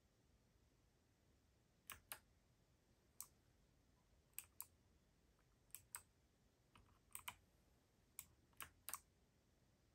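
Keys on a Keydous NJ80-AP mechanical keyboard with Kailh BOX White switches being pressed one at a time at a slow, uneven pace, each a short sharp click, often in quick pairs.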